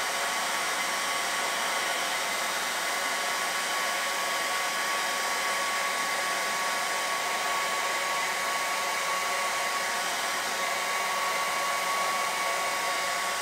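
Handheld hair dryer running steadily on heat, a steady blowing hiss with a high whine in it, drying freshly sprayed hairspray to set the mask's mustache hair flat. It cuts off right at the end.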